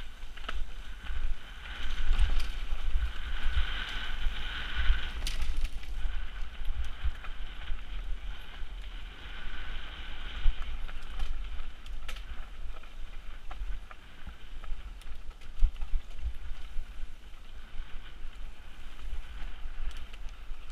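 Mountain bike ridden fast down dirt singletrack, with a low wind rumble on the camera's microphone, tyre noise and scattered knocks from trail bumps. Stretches of rear-hub buzz from coasting come in the first few seconds and again around ten seconds in.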